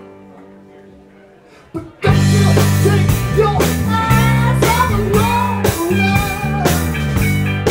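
Live rock band: a couple of quiet held notes fade, then about two seconds in the full band comes in loud, with electric guitars, bass and a drum kit keeping a steady beat of about two hits a second.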